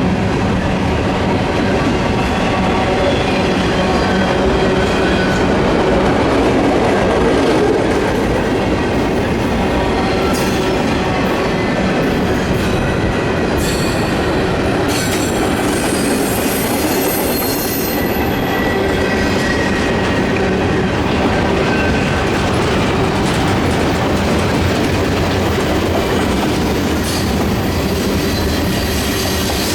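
Freight train cars rolling past at steady speed, wheels clacking over the rail joints, with a thin high wheel squeal coming and going around the middle.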